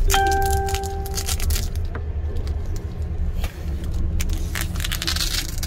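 Steady low rumble of an Amtrak sleeper train, heard inside the roomette, with the rustling and light clicks of the curtains' Velcro seam being pulled apart. A short ringing tone sounds right at the start and fades within about a second.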